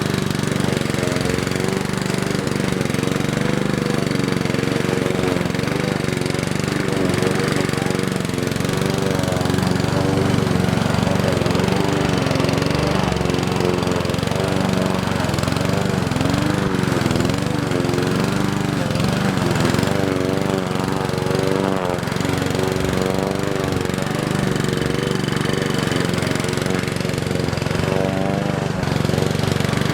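Small petrol engine of a grass cutter running steadily while cutting tall grass, its pitch wavering up and down.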